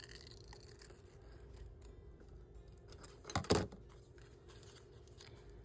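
Scissors cutting through paper: one short snip about three and a half seconds in, over a faint steady hum.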